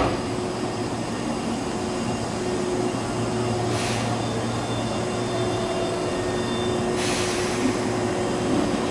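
Hankyu 6000 series electric train pulling slowly into the station and coming to a stop, with a steady low hum of motors and wheels. Two short hisses of air come about four seconds in and again about seven seconds in.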